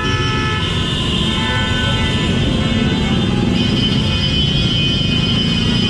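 Kymco scooter riding through slow urban traffic: a steady rumble of engine and road noise, with long, steady high tones over it that change pitch about three and a half seconds in.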